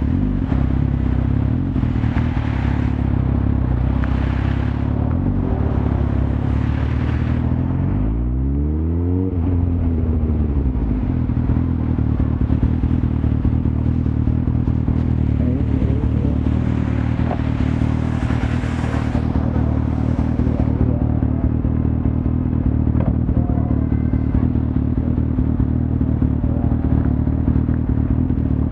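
Suzuki GSX-R1000 sports bike's inline-four engine running steadily under way, with a brief rise and fall in revs about eight seconds in. A rushing hiss swells over it now and then.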